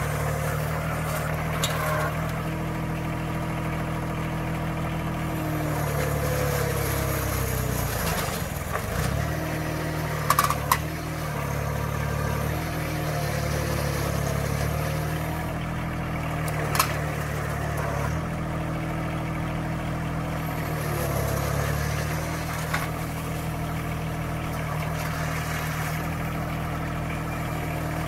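Compact tractor's three-cylinder diesel running, its pitch sagging and recovering several times as it works the front loader under load. A few sharp knocks come about a third of the way through, and one more a little past the middle.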